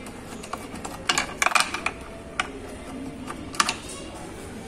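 A few sharp, separate clicks and clacks: the tail-light nuts being taken off by hand and the plastic tail-light unit being loosened from the car body. The loudest group comes about a second and a half in.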